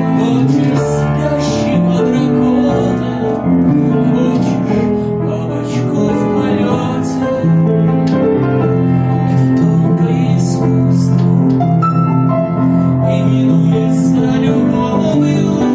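Gentle song music with piano, running steadily.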